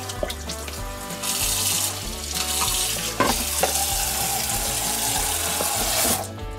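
Kitchen tap running into the sink during washing-up: a steady hiss that starts about a second in and shuts off suddenly near the end.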